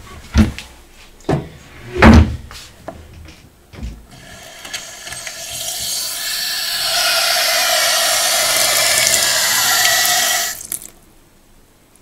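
A few dull knocks, then a kitchen mixer tap opened and water running from the spout into a stainless steel sink. The flow builds up over a couple of seconds and is shut off sharply near the end, testing the just-repaired ceramic tap valve.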